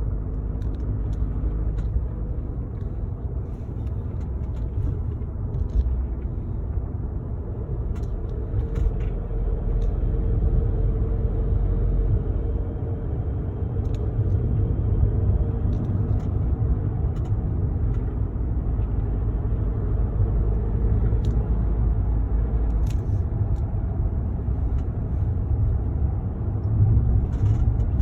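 A car driving along: a steady low rumble of engine and road noise, with a few faint clicks.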